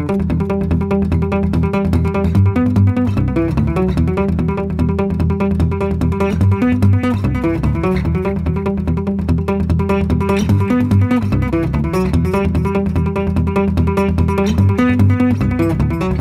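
Fast acoustic guitar instrumental played fingerstyle, a rapid run of plucked notes.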